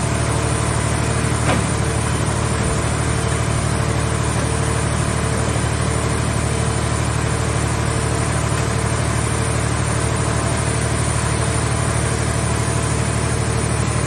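Hydraulic car baler's power unit running steadily at a constant engine-like hum, with one light knock about a second and a half in.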